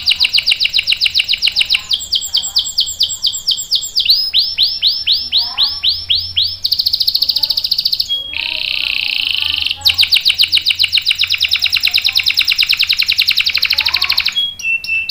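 Domestic canary singing a continuous song of fast rolling trills. The rolls change from one rapid repeated note to another every couple of seconds, and the longest lasts about four seconds near the end.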